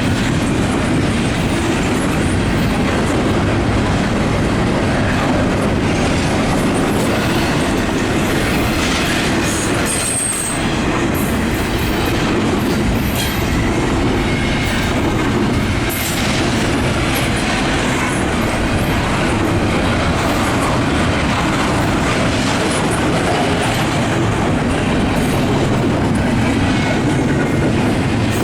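Freight train cars rolling past: steel wheels running steadily on the rails, with a brief high wheel squeal about ten seconds in.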